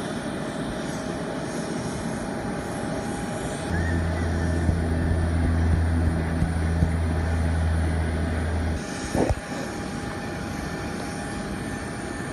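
Aircraft engine noise: a steady din, with a strong low hum that comes in about four seconds in and cuts off suddenly about nine seconds in, followed by a short sharp sound.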